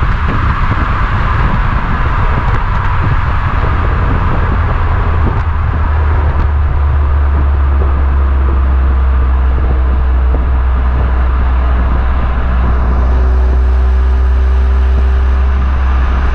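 Stock exhaust of a Volkswagen Golf 7R's 2.0-litre turbocharged four-cylinder, heard at the quad tailpipes while the car drives at a steady speed: a steady low drone under road noise.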